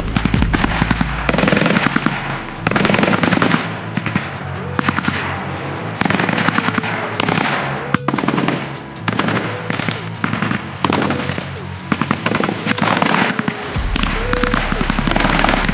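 Machine guns firing in repeated short bursts of rapid automatic fire, each burst about a second long, with brief gaps between them.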